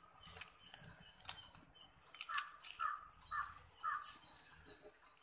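A small animal chirping: short high-pitched chirps repeated about twice a second, joined by four lower calls in the middle. Faint rustling of paper being folded lies underneath.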